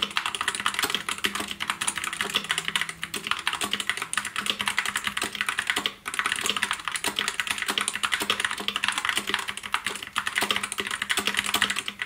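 Fast, continuous typing on a compact mechanical keyboard with red (linear) switches: a dense run of key clacks, with a brief break about six seconds in.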